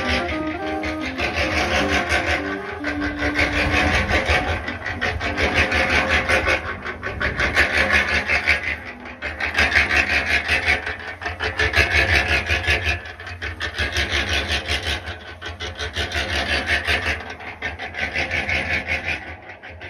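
A rough, rasping grinding noise, like a tool working against a material, with very fast fine strokes over a steady low hum. It swells and eases every second or two and dips briefly near the end.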